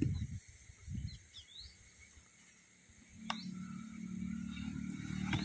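Outdoor background noise with a few brief bird chirps, dull low thumps near the start, and a steady low hum setting in about three seconds in.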